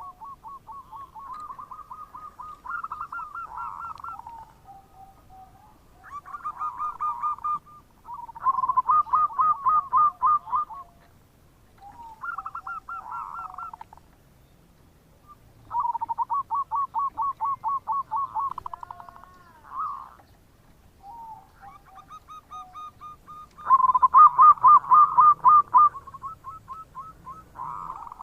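Zebra dove (perkutut) cooing its 'bekur' song: bouts of rapid staccato coo notes, each a few seconds long, repeated with short pauses. The loudest bout comes near the end.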